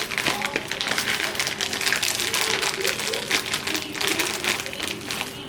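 Plastic bag of shredded cheese crinkling, with dense irregular crackles and light taps as the cheese is shaken out and sprinkled over the casserole. A faint steady hum runs underneath.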